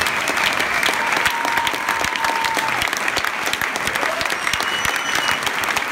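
Concert audience applauding: dense, steady clapping, with a few long whistles over it.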